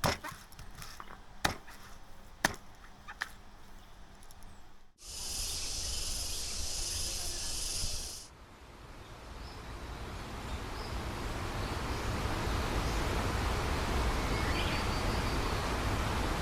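A few faint clicks, then a high, steady insect buzz like cicadas for about three seconds that cuts off suddenly. After it comes the even rushing of a waterfall, growing louder and then holding steady.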